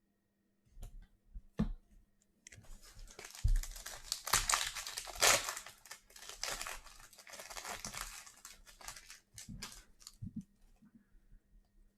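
2021-22 Donruss Basketball card pack wrapper being torn open and crinkled: a dense crackling rustle that starts about two and a half seconds in and dies away around nine seconds, with a few light knocks before it and scattered clicks after.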